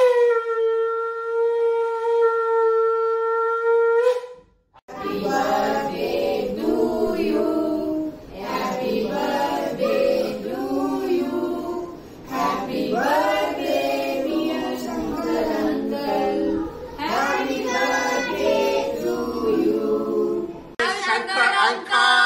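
A conch shell blown as one steady, held note for about four seconds. After a short gap, a group of adults and children sings together for the rest.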